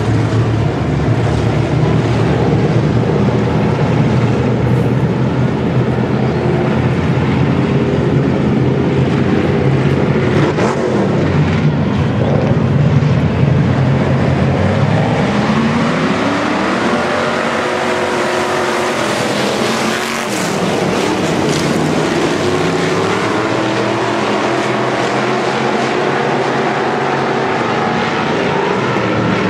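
Pack of hobby stock race cars running on a dirt oval. A low, steady engine drone in the first half; about halfway through, the engines rise in pitch together as the pack accelerates, then several engines rise and fall as the cars go around.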